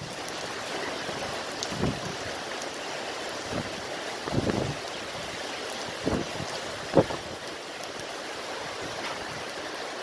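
Heavy rain falling in a steady hiss, with several short gusts of wind buffeting the microphone, the sharpest about seven seconds in.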